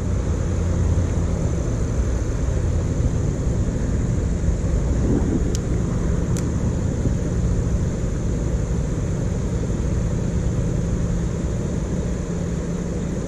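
Lawn mower engine running steadily: a low, even drone with a constant high hiss over it.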